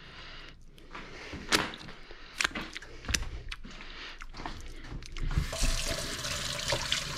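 A few sharp knocks, then near the end a kitchen tap is turned on and water runs steadily into a stainless steel sink as hands are rinsed under it.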